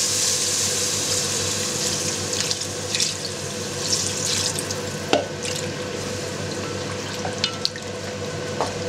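Water pouring from a plastic jug into a hot kazan of fried meat and paprika, splashing and hissing, loudest at the start and fading over several seconds. A wooden spatula then stirs the stew, knocking a few times against the pot.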